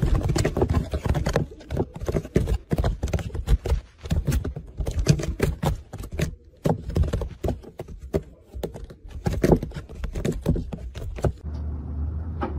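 Rapid, irregular knocks and scrapes of a cat scrambling inside a carpeted cat-tree cubby, its paws thumping against the walls. In the last second this gives way to a low steady hum.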